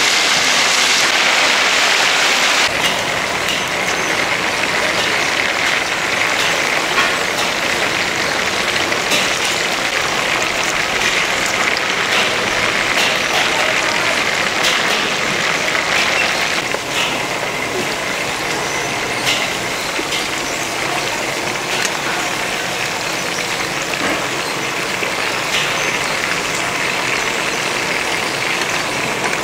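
Steady hiss with scattered short clicks and clinks, typical of food frying at a hawker stall. The hiss is strongest for the first few seconds.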